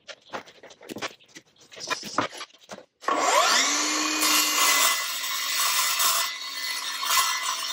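A Milwaukee M18 Fuel 2982-20 cordless metal-cutting circular saw with an 8-inch blade starts about three seconds in with a rising whine. It then runs steadily as it cuts through 1x2 metal square tubing with a 1/8-inch wall. Before it starts there are a few faint clicks of handling.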